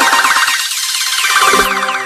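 Electronic dance music with repeated falling synth sweeps; the bass drops out for about a second in the middle, then steady tones come back in.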